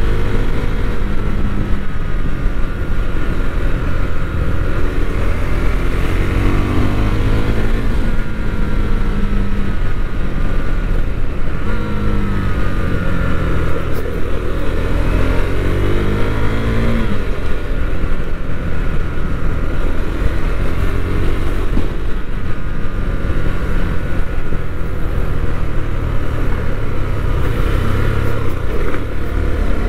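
KTM Duke 390's single-cylinder four-stroke engine running under way. The revs climb and fall back several times as it accelerates through the gears and eases off.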